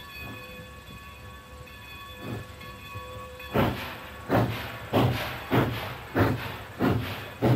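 A steam locomotive pulling a passenger train. About halfway in, its exhaust starts chuffing strongly and evenly, about one and a half beats a second, as it works hard.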